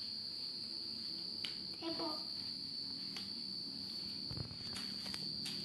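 Crickets trilling steadily in one unbroken high tone, with a few faint clicks and a brief voice about two seconds in.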